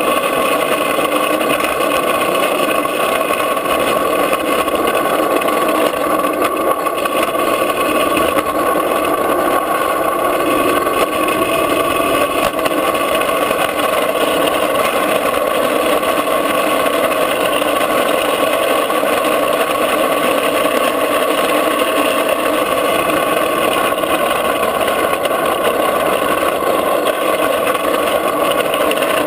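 Steady rush of wind and road noise from a drift trike rolling on asphalt, continuous and even in level.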